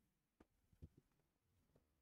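Near silence: room tone, with a few faint clicks in the first second.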